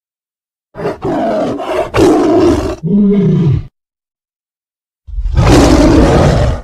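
Custom monster roar sound effect, heard twice: a loud, rough roar of about three seconds that ends in a lower, falling groan, then after a pause of about a second and a half a second harsh roar cut off near the end.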